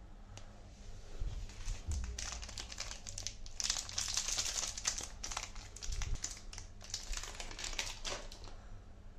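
Thin plastic chocolate-bar wrapper crinkling as hands tear it open and pull it off the bar. The crackly rustling starts about two seconds in and is busiest in the middle and again near the end.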